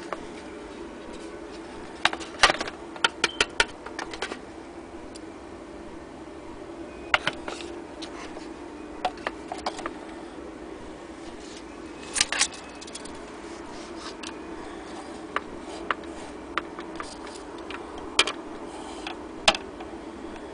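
Scattered sharp clicks and taps, several in quick little clusters, from a tinplate toy speedboat hull being handled and shifted on a plastic kitchen scale. A steady low hum runs underneath.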